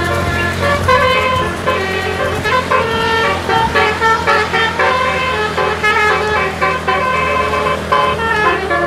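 A bus's multi-trumpet telolet air horn on the roof plays a quick melody of short notes that change pitch several times a second, over the steady hum of the bus engine.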